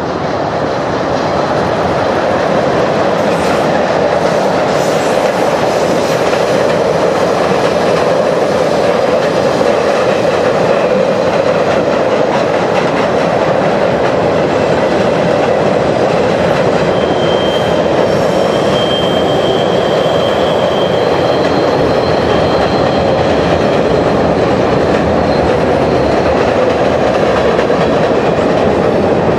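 Norfolk Southern coal train of open hopper cars rolling across an overhead steel girder bridge: a steady, loud rumble with the clickety-clack of wheels over the rails, swelling over the first two seconds as the train comes onto the bridge. Faint high-pitched wheel squeals come and go about halfway through.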